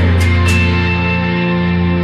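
Instrumental background music with a sustained bass and a steady beat.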